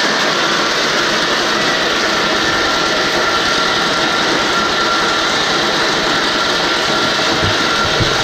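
Pecan processing machinery running with a loud, steady mechanical rattle and hum.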